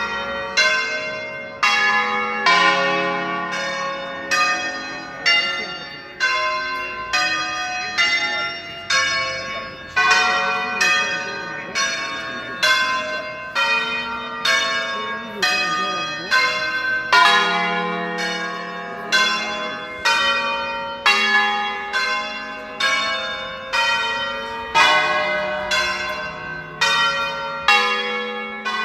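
A ring of ten church bells tuned in D-flat, cast by Cavadini and Allanconi, rung in the Veronese system with the bells swung full circle. The bells strike one after another in a steady run, each ringing on under the next.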